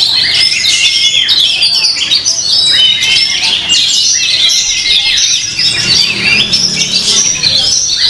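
Oriental magpie-robins (kacer) singing: a loud, unbroken stream of varied whistles, trills and chattering phrases that overlap one another.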